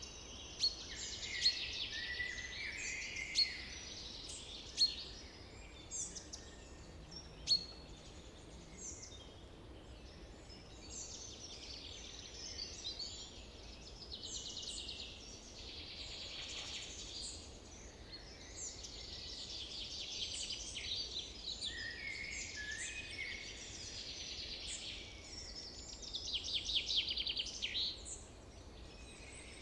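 Summer forest ambience: many birds calling and singing at once, with quick chirps, whistles and rapid trills overlapping throughout, over a faint low background hum.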